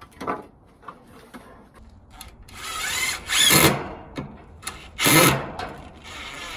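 Wire cutters snipping through welded wire mesh with a couple of sharp clicks, then a cordless drill run in two short bursts, its motor whine climbing as it spins up.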